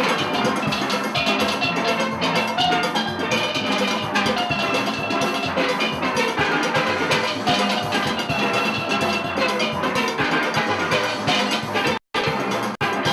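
Steel orchestra playing a calypso arrangement on steel pans, with drums and percussion underneath. The sound cuts out for a split second near the end.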